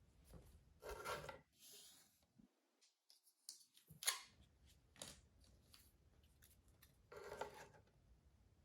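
Cardboard jigsaw puzzle pieces being handled: quiet scrapes and rubs as pieces slide on the table, several short bursts with a sharp click about four seconds in as a piece is pressed down.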